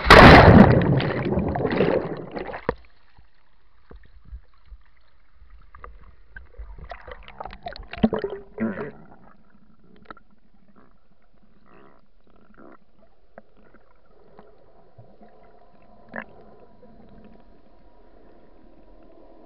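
A loud splash and rush of churning water and bubbles as the camera goes into the sea, lasting about two and a half seconds. Then muffled underwater sound with scattered bubbling and small clicks, and a faint steady hum in the last few seconds.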